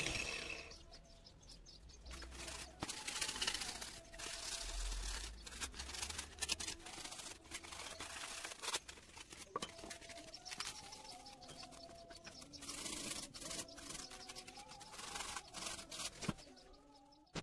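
Hand sanding of a steel knife blade made from a used disc blade: short, uneven scraping rubs of abrasive on the metal. Faint wavering cooing of pigeons in the background.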